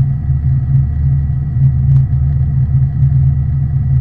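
Fishing boat's engine running, a steady low drone.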